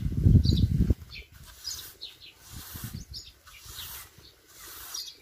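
Birds chirping in short, scattered calls, with a loud low rumble in the first second.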